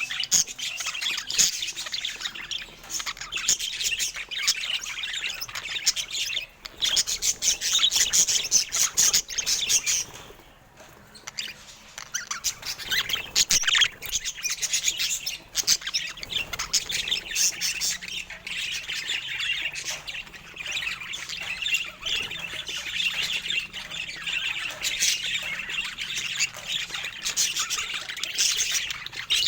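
Budgerigars chattering, with rapid chirps and squawks almost without pause and a short lull about a third of the way through.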